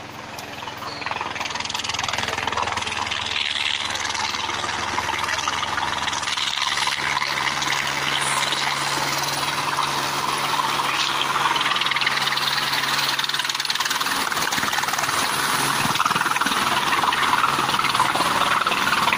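Helicopter approaching and coming in to land, a steady rotor and engine noise that swells about a second in and keeps growing louder toward the end.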